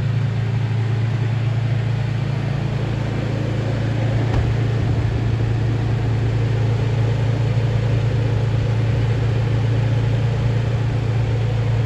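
A car engine idling steadily with a deep, even hum.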